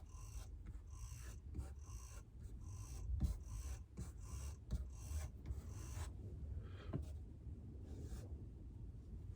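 Rubbing and scraping strokes on a clay pot being worked by hand, in a quick, even rhythm of about two strokes a second for the first six seconds. A few light knocks are mixed in, and fainter handling follows.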